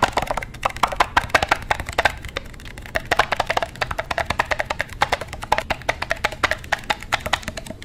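Close-miked chewing of crunchy food: a rapid, irregular crackle of crunching.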